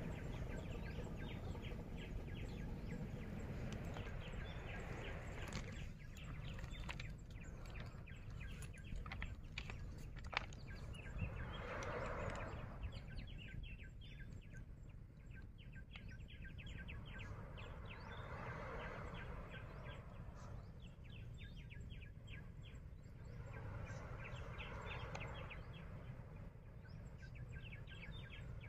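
Birds chirping rapidly, with a lower call repeating about every six seconds, over a faint steady low rumble.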